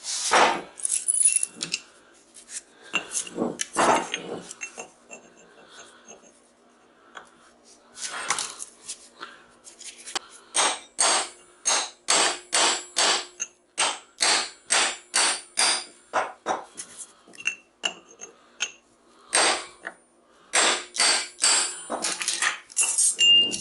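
Hammer blows on metal in groups, with a steady run of about two strikes a second through the middle, each with a short metallic ring: a transformer being knocked apart to free its copper windings.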